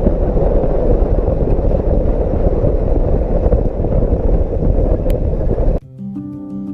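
Off-road 4x4 vehicle driving over rough volcanic terrain: a loud, steady rumble of engine, tyres and wind. It cuts off suddenly near the end, when background music takes over.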